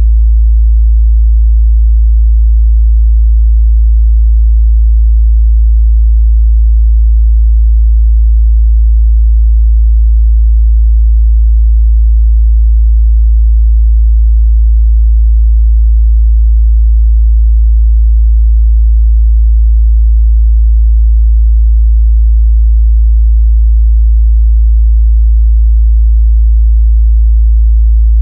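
A steady, loud 55 Hz pure sine test tone, a low bass hum held constant without any change.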